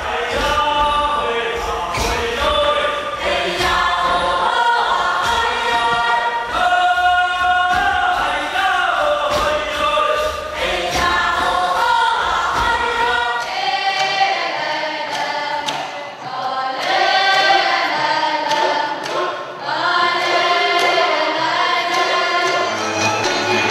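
A group of dancers singing a traditional chant together in chorus. In the first half there are regular thuds, which stop about halfway through while the singing carries on.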